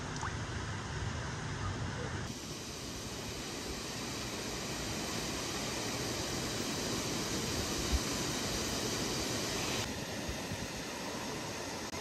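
Steady rush of a waterfall and river water, changing abruptly in tone about two seconds in and again near the end, with one short low thump about eight seconds in.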